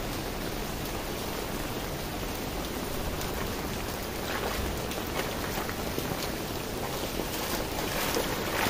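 Steady rain falling, with rainwater runoff rushing into a street drain; the wash grows a little louder in the second half.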